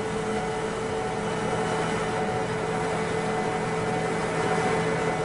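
Milling machine face-milling a metal workpiece: a steady machine drone with several constant hum tones while the cutter is in the cut.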